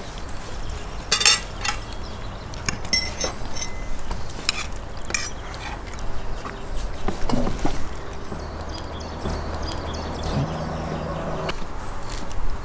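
Scattered light clinks and knocks of tableware and a metal wire rack being handled at a laid table, with a low steady hum for a few seconds in the second half.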